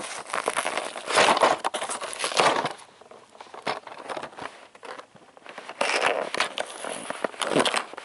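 Cardboard toy box being handled and turned over on carpet: rustling, scraping and crinkling in bursts with small clicks, quieter for a few seconds in the middle.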